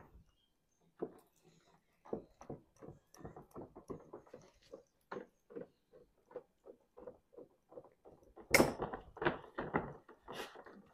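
Hand snips cutting through a sheet of lead in a run of short, regular snips at about two a second, then a louder burst of noise from the sheet near the end.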